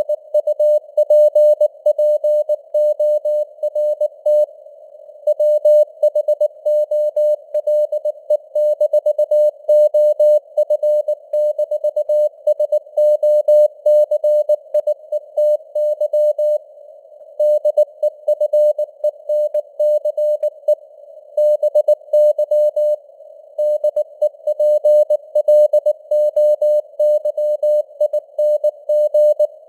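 Morse code (CW) sent at 19 words per minute as a single mid-pitched tone keyed on and off in dots and dashes, with short pauses between words. A narrow band of simulated radio hiss surrounds the tone.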